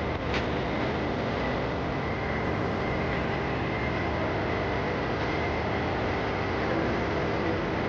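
Steady rushing noise with a faint high hum, and a short click about half a second in.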